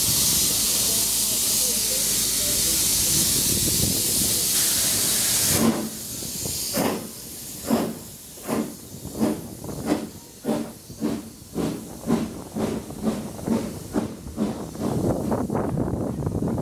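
BR Standard Class 9F 2-10-0 steam locomotive pulling away: a loud steady hiss of escaping steam for the first few seconds cuts off suddenly, then the exhaust beats come in and quicken from about one to two a second as it gathers speed.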